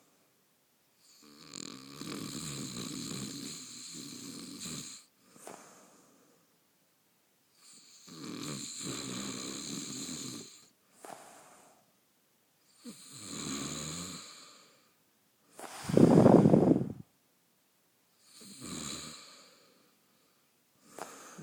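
A man snoring in his sleep. Long snores come about every five seconds, with shorter, quieter breaths between some of them. One snore about sixteen seconds in is much louder than the rest.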